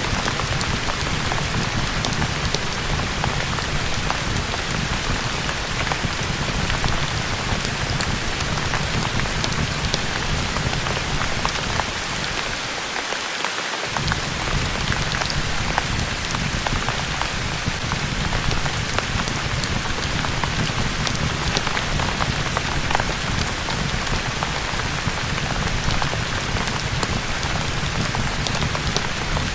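Steady rain pouring, with scattered faint crackles from a fireplace. Its low rumble drops out briefly about halfway through, then returns.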